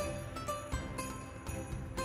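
Instrumental background music: a light tune with a steady beat.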